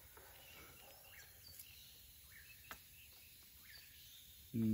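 Quiet outdoor background with faint bird chirps and a couple of faint clicks, ending in a brief murmur from a man's voice.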